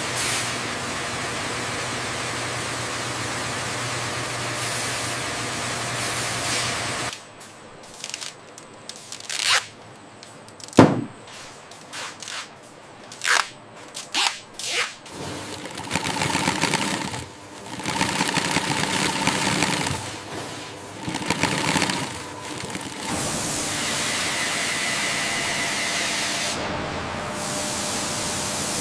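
Factory machinery and tool sounds. A steady hiss runs for about seven seconds, then comes a quieter stretch of scattered sharp clicks and knocks, and then louder machinery that settles into a steady running noise with a faint high whine near the end.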